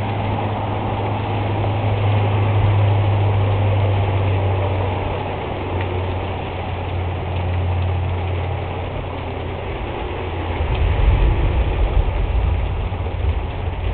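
Night thunderstorm: rain falling with a steady low rumble under it. The rumble swells and turns rougher about ten seconds in.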